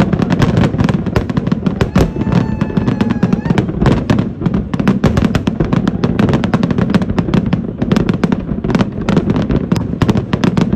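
Fireworks going off in a dense, continuous barrage of rapid crackling pops and bangs over a steady low rumble.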